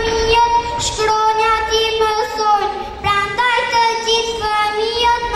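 Young children singing a song into microphones: one melody in long held notes, with a short break between phrases about three seconds in.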